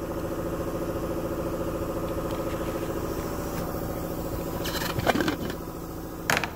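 Steady machine hum with several fixed tones, with a few short clattering knocks about five seconds in and again near the end.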